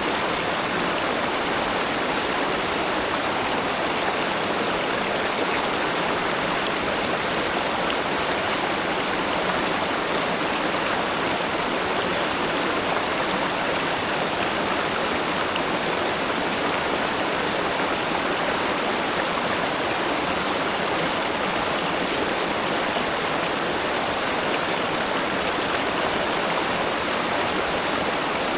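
A river of spring water flowing, a steady, even rushing with no change in level.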